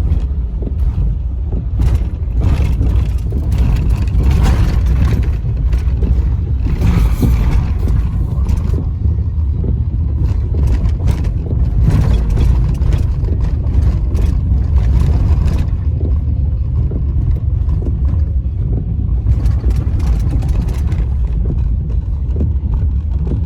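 Floodwater rushing over a road, carrying rocks and debris, with a heavy low rumble underneath and rushing noise that swells and fades.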